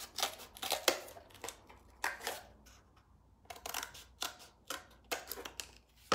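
Scissors cutting through cardboard: a run of short, irregular snips, with a pause of about a second midway.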